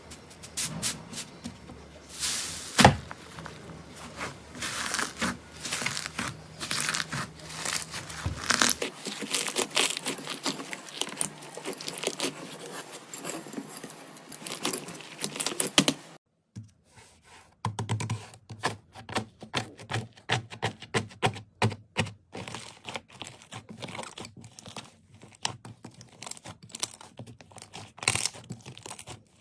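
Slime being squeezed and pressed by hand, giving a dense run of crackling and popping clicks. It breaks off in a brief silence about halfway through, then a second stretch of handling brings sharper, more scattered clicks and pops.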